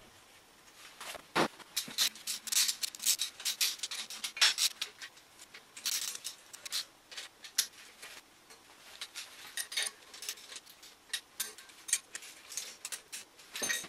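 Irregular clicks, clinks and knocks of metal tools and parts being handled while fitting an engine holder to an engine stand, with one heavier knock about a second and a half in.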